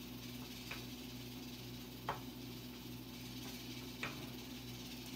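A steady low hum with three faint, sharp ticks about one and a half to two seconds apart.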